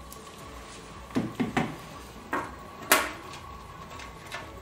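A handful of short plastic clicks and knocks as a power cable's plug is handled and pushed into the power port on the back of a UV post-curing unit. Three come close together just after a second in, and the sharpest comes about three seconds in.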